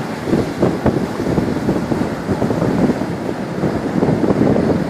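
Strong storm wind buffeting the microphone over heavy surf pounding the shore, as a gusting, rushing noise.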